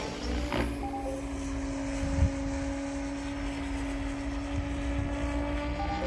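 Electric 700-class RC helicopter (PSG Dynamics Seven) flying: a steady hum from its rotors and motor, holding one pitch. A brief low knock about two seconds in.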